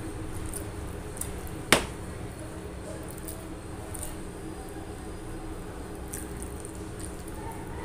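Fingers mixing and squeezing rice with curry on a steel plate, with faint wet ticks and one sharp click about two seconds in. A steady low hum runs underneath.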